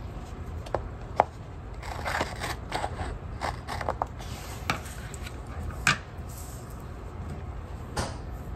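Scissors snipping the overhanging edge of a paper sticker off a planner page, a few sharp snips among paper rustling and handling.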